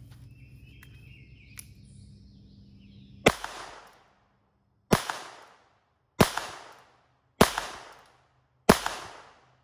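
Five shots from a North American Arms .22 Long Rifle mini revolver, fired pretty quick, about one and a half seconds apart. The first comes about three seconds in, and each sharp crack trails off in a short echo.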